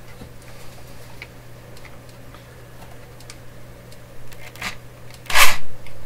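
Handling noise while getting set up to drill a radio chassis: small scattered clicks and rustles over a steady low hum, then a short, loud rustling scrape about five and a half seconds in.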